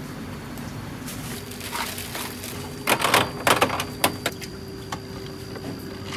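A cluster of loud clattering and rustling knocks about three seconds in, then a few single sharp clicks, from fish and kitchen things being handled. A steady hum runs underneath.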